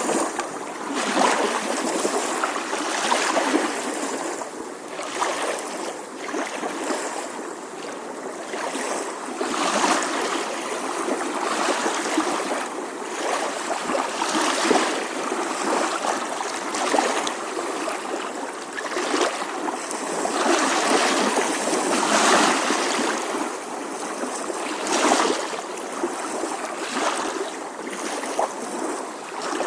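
Gentle ocean waves lapping on a shore: a steady wash of water that swells and ebbs every two to three seconds.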